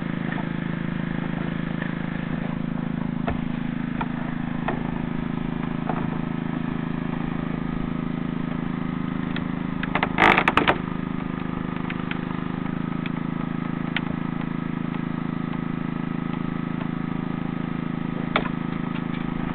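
Hydraulic rescue-tool power unit running steadily while a hydraulic cutter closes on a car's door pillar. About ten seconds in, a loud, brief crunching crackle comes as the pillar metal is cut through.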